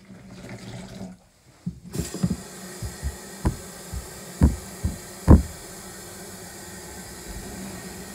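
Cold tap water running into a pitcher of mixed milk replacer, a steady hiss starting about two seconds in. A few sharp knocks come in the middle.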